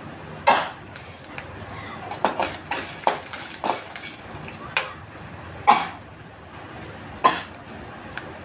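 A woman sneezing again and again: a run of short, sharp sneezes a second or so apart, the loudest about half a second in, near the middle and near the end. The sneezing is set off by the fumes of spicy sun-dried chili (vatthal).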